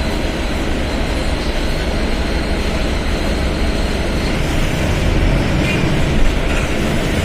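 Mercedes-Benz OF 1721 BlueTec 5 bus's diesel engine running, a loud steady drone with a deep rumble. A thin high whine over it stops about four seconds in.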